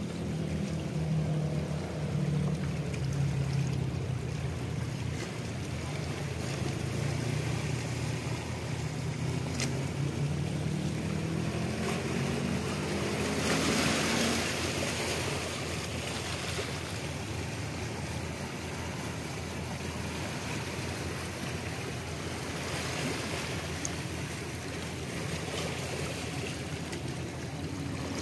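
A boat engine hums steadily, its pitch rising for a few seconds around the middle before it fades out, over wind and small waves washing against shoreline rocks. The wash of water swells briefly about halfway through.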